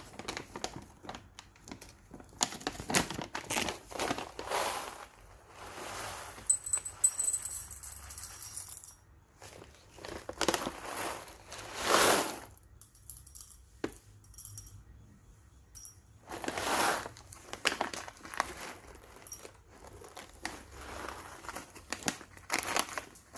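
Whole coffee beans being weighed out to a dose: rustling and rattling as the beans are poured and shaken, in irregular bursts with short pauses between them.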